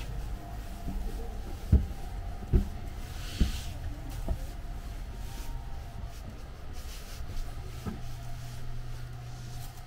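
Footsteps climbing carpeted stairs, four thuds a little under a second apart, then walking on along a carpeted corridor, over the steady low hum of the stationary sleeper train.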